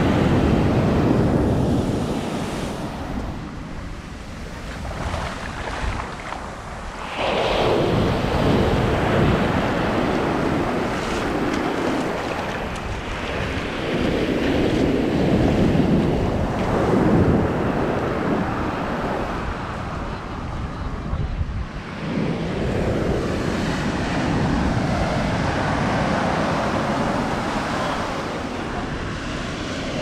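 Ocean surf breaking and washing up the sand, swelling and easing wave by wave, with a sudden louder surge about seven seconds in. Wind buffets the action camera's microphone.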